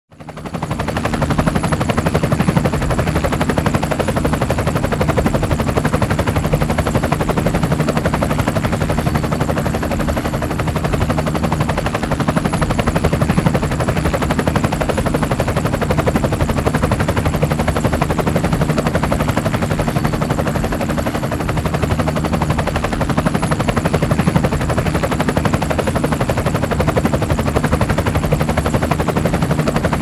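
Drone's motors spinning up in the first second, then its propellers buzzing steadily and loudly throughout, with a steady low hum and a faint high whine.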